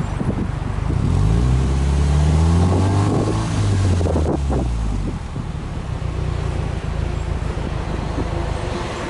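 Subaru Impreza WRX STi (GDB F-type) 2.0-litre turbocharged flat-four heard at the tailpipe, free-revved while parked: the revs climb about a second in, hold high with a second surge, then drop back to idle about five seconds in and settle into a steady idle.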